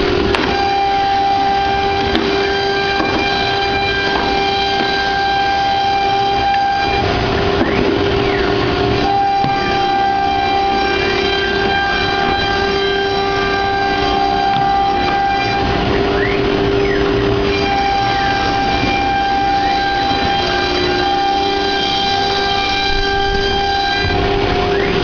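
CNC wood carving machine running: a steady whine made of several tones that cut out and come back every few seconds, with brief rising and falling glides in pitch as it works.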